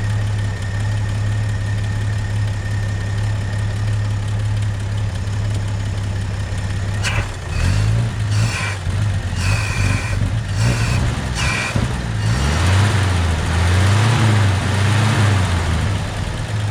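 1966 Chevrolet C30 truck engine idling steadily, then revved up and down several times from about seven seconds in, running just after its carburetor was resealed to cure a fuel leak.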